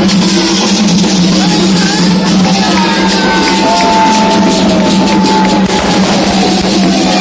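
Candomblé ceremonial music: drums and shaken percussion playing a fast, even rhythm while voices sing a chant. The music is loud and unbroken.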